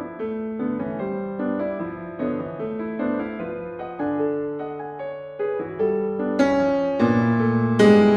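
Solo piano playing a steady run of chords, then three louder, fuller chords near the end, the last one left ringing.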